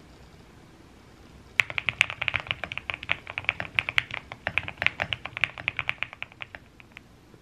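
Typing on a mechanical keyboard: a quick, dense run of keystrokes that starts about one and a half seconds in and stops shortly before the end.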